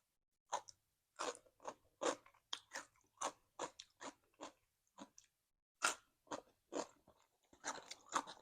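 A person chewing crunchy cucumber salad and raw vegetables: a run of sharp, irregular crunches, about two a second.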